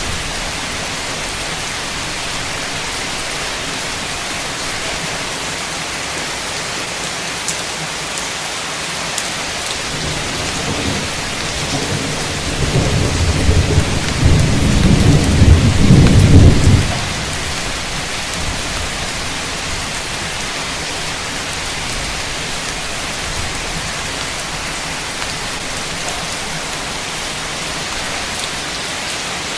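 Heavy, steady rain with a long roll of thunder. The thunder builds about a third of the way in, rumbles loudest for a few seconds just past the middle, then stops suddenly, leaving the rain.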